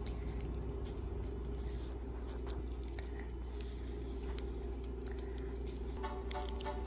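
Foil wrapper of a chocolate egg crinkling and crackling in short irregular bursts as it is peeled off by hand. Background music comes in near the end.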